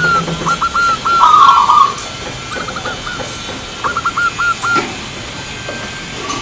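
Zebra dove (perkutut) cooing: a run of short, clipped notes at about four a second ending in a longer, louder coo, followed by two shorter, fainter runs of notes.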